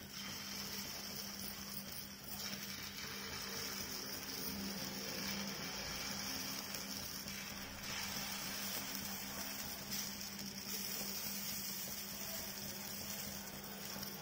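Dosa batter sizzling faintly and steadily on a hot cast iron tawa, over a steady low hum.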